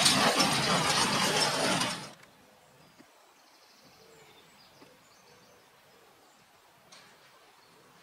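Tractor-drawn small square baler and Bale Baron bundler at work close by, a loud dense mechanical clatter over the tractor engine. It cuts off sharply about two seconds in, leaving only faint outdoor background with a few soft clicks.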